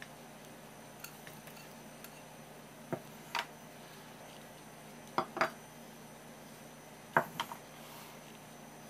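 Kitchenware clinking and knocking as a ceramic dish, a stainless steel mixing bowl and a spatula are handled on a wooden board: three short pairs of knocks a couple of seconds apart, over a faint steady hum.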